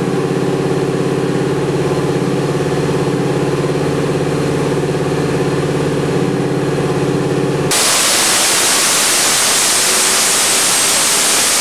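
A twin-turbocharged 428 Windsor small-block Ford V8 runs on an engine dyno, holding steady around 2,000 rpm. About eight seconds in, it suddenly goes to wide-open throttle, and its sound turns to a loud, harsh full-power noise as it pulls to about 5,900 rpm and over 1,000 horsepower.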